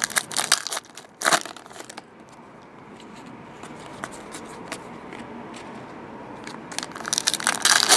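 Foil wrapper of a trading-card pack crinkling and tearing, with loud crackles in the first second or so and again near the end and quieter handling noise between.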